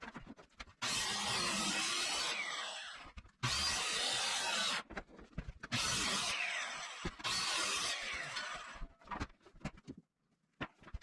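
Power tool cutting into the wooden floor in three runs of one to three seconds each, with a few short knocks and clatters after the last run.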